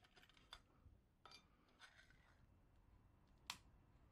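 Faint clicks and light taps of metal stove parts being handled and fitted back together, with one sharper click about three and a half seconds in.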